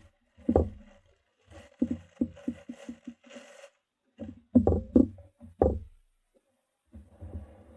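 Handling noises close to the microphone: a run of quick taps and scrapes, then several heavier knocks about halfway through, like a boxed part being picked up and handled.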